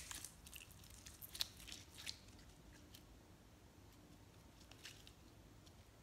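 Faint squishy clicks of stiff glitter slime squeezed in the hand and breaking apart, mostly in the first two seconds, with a few more near the end; otherwise near silence.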